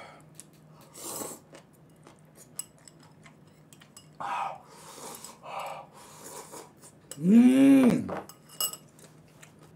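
Metal chopsticks clicking against a ceramic bowl, with short bursts of slurping as black-bean instant noodles are eaten from the bowl. About seven seconds in, the loudest sound is a man's drawn-out wordless hum that rises and then falls in pitch.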